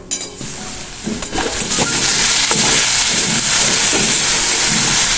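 Jute leaves (pat shak) frying in mustard oil in a kadai and being stirred, cooking down the water they have released. The sizzle builds over the first two seconds, then holds steady with repeated stirring strokes under it.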